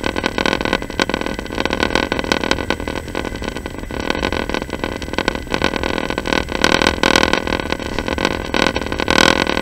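Passenger train running, heard from inside the carriage: a steady rolling noise full of constant rattling and clatter. It swells briefly about seven seconds in and again near the end.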